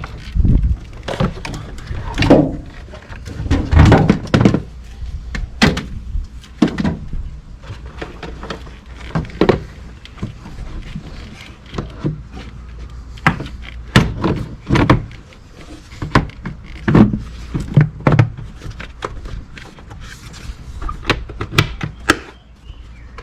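A string of irregular knocks and clunks, roughly one or two a second, of parts and tools being handled while the truck's engine bay is put back together.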